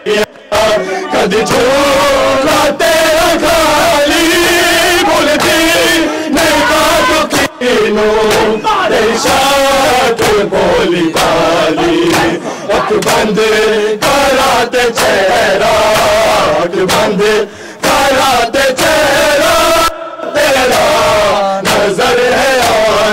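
Men chanting a noha, a mourning lament, in unison, loud and continuous. It is accompanied by the slaps of bare-chested matam, hands beating on chests.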